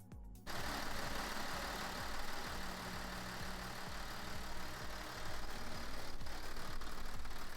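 Hyundai Veracruz engine idling, cutting in abruptly about half a second in, with a steady low pulse under a broad rush of noise.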